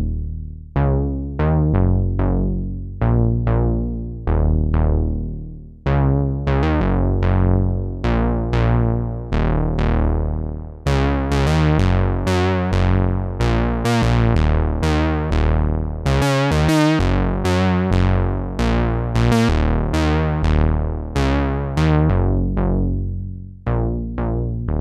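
Moog Minimoog analog monophonic synthesizer playing a low-register line of plucky notes, each note starting bright and quickly turning dull as its filter closes. The notes come faster and brighter in the middle stretch.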